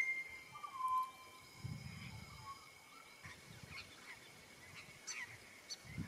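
Pied butcherbird song: a clear whistled note about a second in, followed by scattered short chirps and call notes.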